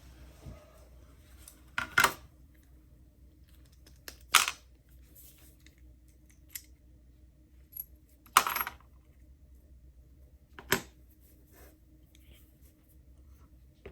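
Sharp metallic clicks and clinks, about four of them a couple of seconds apart, from a brass padlock and small lock-picking tools being handled as the lock is taken apart.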